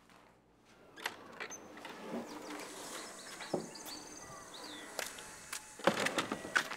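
A few sharp knocks and rustles over faint high chirps, likely birds; the loudest knocks come near the end.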